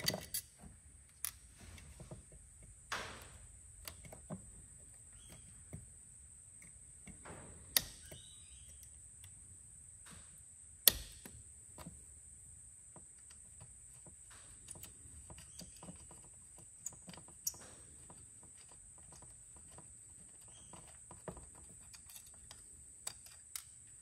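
Scattered small clicks, taps and knocks of hand work on the JB4 piggyback ECU's case: an Allen key turning the case screws and the case being handled, with a sharper knock about 8 s in and the loudest about 11 s in. A steady faint high hiss runs underneath.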